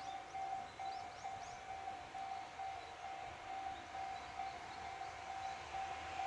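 Japanese level-crossing alarm ringing: one electronic bell tone repeated rapidly and evenly, the warning that a train is approaching. A few short high chirps sound in the first second or so.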